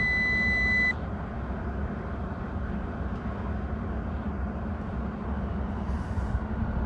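A steady electronic beep lasting about a second at the start, then a steady low hum inside a car cabin, with the ignition on while the engine control unit is being flashed.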